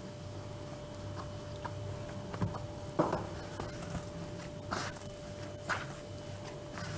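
Hands kneading soft yeast dough in a large bowl: a few soft squishes and slaps of the dough, the strongest about three seconds in, over a faint steady hum.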